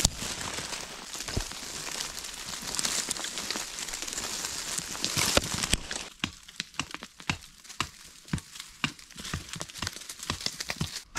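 Loose earth and stones sliding and pattering down a steep dirt slope for about six seconds, dislodged by crowbar work on a rock above. Then it gives way to separate crunching footsteps on gravel and dry leaves.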